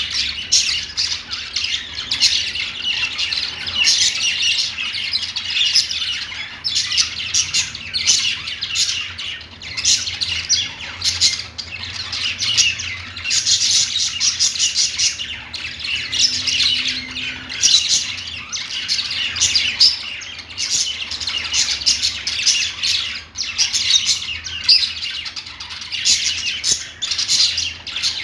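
Budgerigars chattering and warbling without pause, a dense run of short chirps and squawks.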